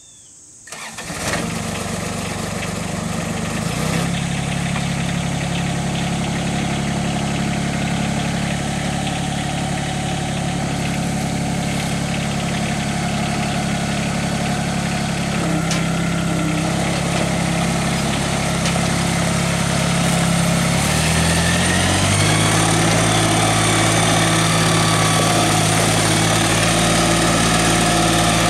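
2005 Cub Cadet 5234D compact tractor's diesel engine starting about a second in, then idling steadily. Around three-quarters of the way through, the engine speed rises and it runs on at a higher steady speed.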